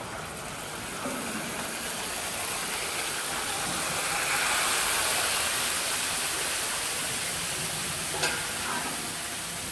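Red sauce poured from a large steel ladle into a big cauldron of soup, with a steady hissing sizzle, loudest about halfway through. A short knock near the end.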